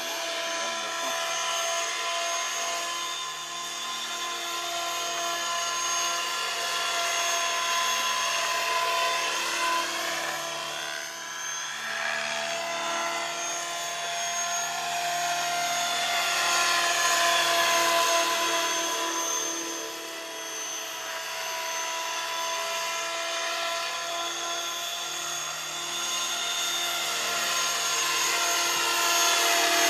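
Flybarless radio-controlled model helicopter in flight: a steady whine from its motor and rotors that swells and fades in loudness as it moves about, with sweeping shifts in tone as it passes by.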